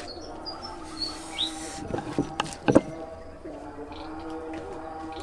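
A few short bird chirps in the first second and a half, then sharp wooden knocks around the middle, the loudest about halfway, as a wooden mortar and pestle are picked up and carried.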